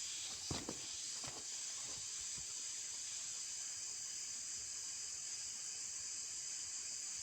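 Steady high-pitched drone of forest insects, with a few soft knocks in the first couple of seconds.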